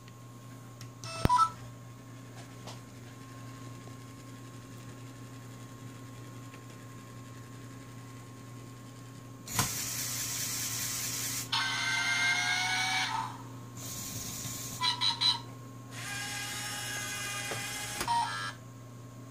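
LEGO Mindstorms EV3 motors driving a plastic gear train and rack, whirring in several spurts with a rising whine as the giraffe model's neck extends upward. A few short electronic beeps, three in quick succession about fifteen seconds in, with others near the start and near the end.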